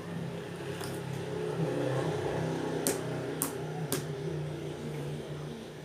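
A car engine running with a steady low hum. Three sharp clicks come about three seconds in, roughly half a second apart.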